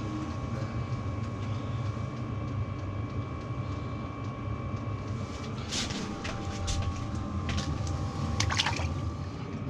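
A steady low mechanical hum with a faint steady whine above it. From a little past halfway come sharp splashes and knocks as a walleye is handled and dropped back into the water.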